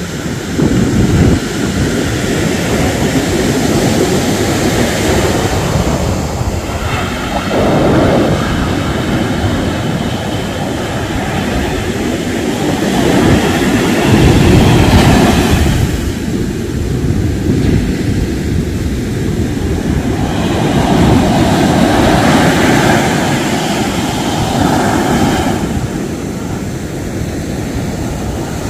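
Sea waves breaking and washing up a sandy beach, a continuous rushing of surf that swells and eases with each set of waves.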